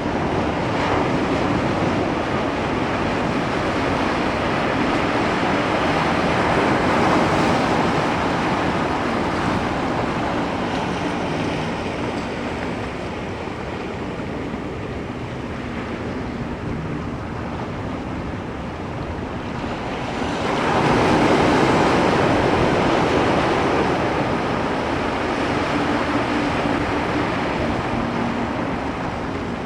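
Ocean surf: waves breaking and washing in a continuous rush that swells and ebbs, with one louder wave breaking about two-thirds of the way through.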